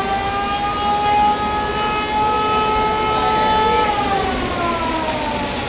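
Mechanical-style siren wailing, the sound effect of the model layout's burning-building scene: one tone that creeps up slightly, holds steady, then winds down in pitch over the last couple of seconds.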